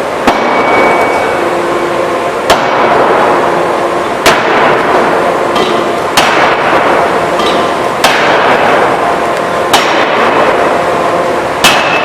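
C66-50KJ 2-ton hydraulic open die forging hammer striking seven blows at an even pace, about one every two seconds. Each blow is a sharp bang followed by about a second of rushing noise with faint ringing.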